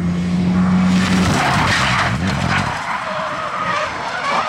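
Rally car passing close at full attack, its engine note steady and then dropping in pitch, with the tyres skidding and sliding across the stage surface.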